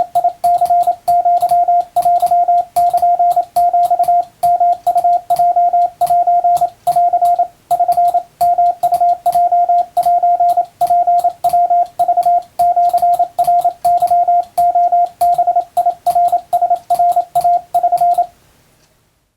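Morse code tone sending Japanese Wabun code: one steady beep keyed on and off in short dots and longer dashes with gaps between characters, stopping about 18 seconds in.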